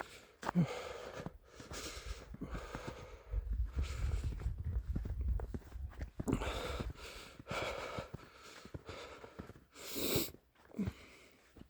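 A person breathing hard in short, noisy puffs about once a second, out of breath from walking uphill at high altitude in the cold. Wind buffets the microphone with a low rumble in the middle.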